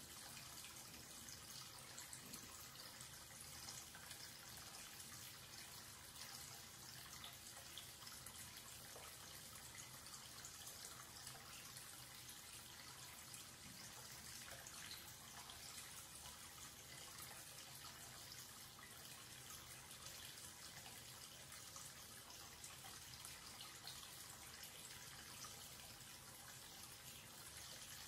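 Thin stream of water from a wall-mounted tap running steadily and faintly into a wash basin, splashing into the shallow water swirling around the drain.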